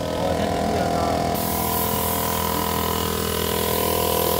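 Car engine idling steadily at an even speed, heard close up in the engine bay.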